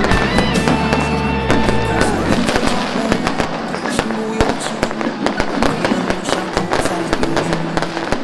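A string of firecrackers going off in a rapid, continuous crackle of sharp pops, growing denser about two seconds in, with music playing underneath in held tones.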